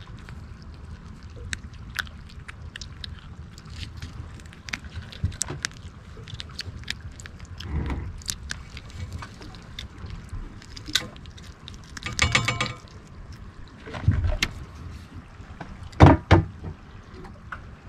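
Water lapping against a small boat, with scattered light clicks. A brief rapid rattle comes about two-thirds of the way through, and two louder knocks near the end.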